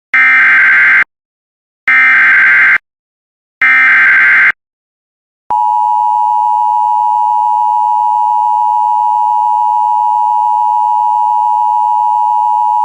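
Emergency Alert System SAME header: three one-second bursts of shrill data warble that encode a severe thunderstorm warning. About a second after the last burst comes the EAS two-tone attention signal, a loud steady tone held for about eight seconds that cuts off sharply near the end, announcing that a spoken alert follows.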